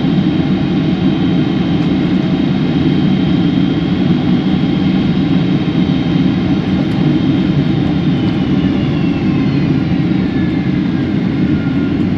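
Boeing 777 jet engines (Pratt & Whitney) heard inside the cabin: a loud, steady rumble with a thin high whine that falls in pitch from about two-thirds of the way through.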